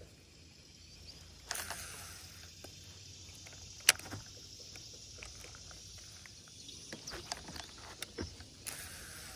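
Quiet outdoor background with a steady faint high hiss, broken by handling of a baitcasting rod and reel in a plastic boat: scattered knocks and rustles, and one sharp click about four seconds in that is the loudest sound.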